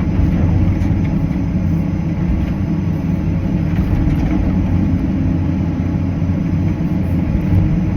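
Cat 325CL excavator's diesel engine running steadily, heard from inside the cab.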